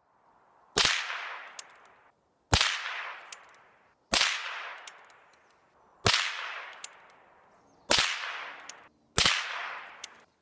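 Six suppressed shots from a Chiappa Little Badger .22 LR rifle fitted with a Gemtech GM22 suppressor, about one every one and a half to two seconds. Each is a sharp crack that fades over about a second, with a fainter click shortly after it.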